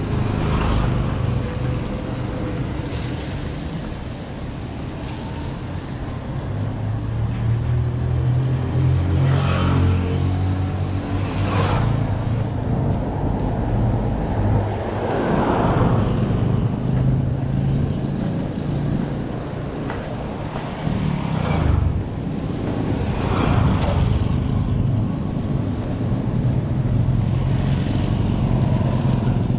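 Street traffic: a motorcycle engine runs past, its hum strongest around a third of the way in, over a steady low rumble.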